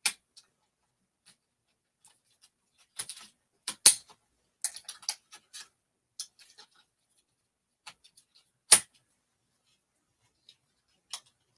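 Scattered clicks and knocks of plastic and metal as a studio easel's expandable canvas-holder arms and clamps are adjusted by hand, with two sharper knocks about four and nine seconds in.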